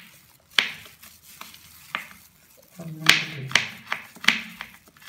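Kitchen knife chopping nuts on a cutting board: about seven sharp taps of the blade against the board, irregularly spaced.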